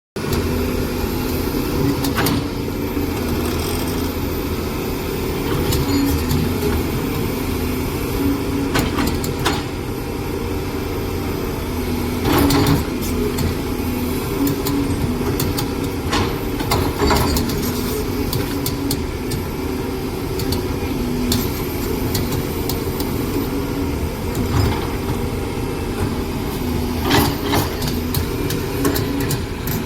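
Hydraulic excavator working, its diesel engine running steadily under load, with several sharp knocks scattered through the stretch as the bucket strikes earth or stone.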